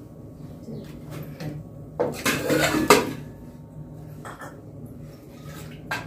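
Stainless steel ladle clinking and scraping against a steel pot and bowls as milk is ladled out. There is a loud cluster of clattering about two to three seconds in, with lighter clinks around it.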